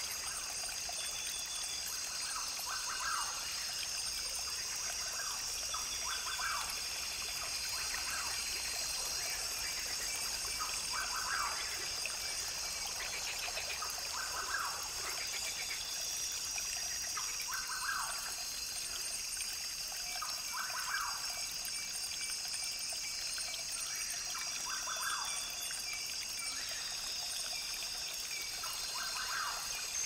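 Rainforest brook recording: water trickling steadily over stones, under a steady high-pitched buzzing, with a short bird call repeating about every three seconds.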